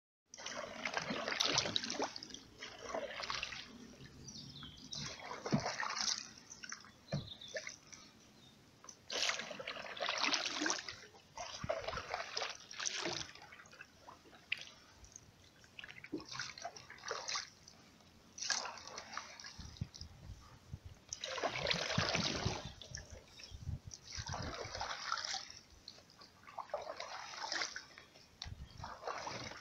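Canoe paddle strokes in calm water: a splash and the trickle of water off the blade every two to three seconds, with drips between strokes.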